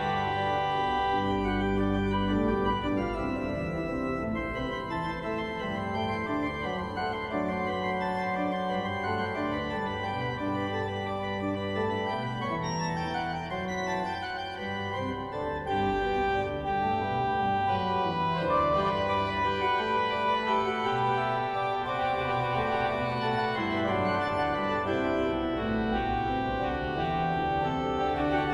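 Organ music: slow, sustained chords that change every few seconds.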